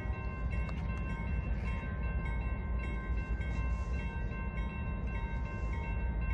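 Grade-crossing warning bell ringing steadily over the low rumble of an approaching diesel freight locomotive.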